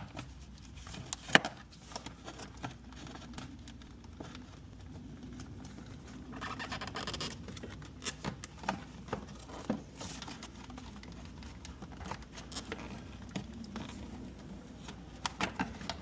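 Scattered clicks and knocks of hand work on engine-bay parts, with a rustling, scraping stretch about six to seven seconds in; the sharpest knock comes just over a second in.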